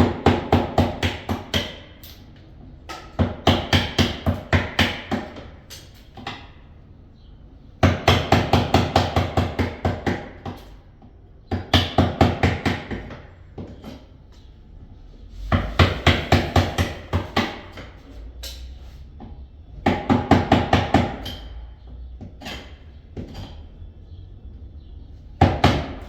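Hammer tapping a wood chisel lightly and rapidly, about five or six blows a second, in short runs of one to three seconds with pauses between, cutting wood out around a lock plate.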